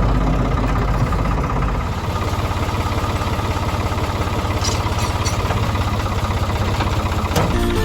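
Engine of a 1970 Ford 4500 backhoe idling with a steady, fast, even throb. Near the end there is a single sharp knock, then music begins.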